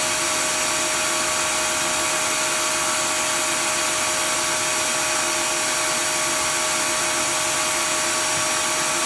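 Brother TC-324 drill and tapping center's spindle running at a steady 1500 RPM: an even whir with a few steady tones over a hiss.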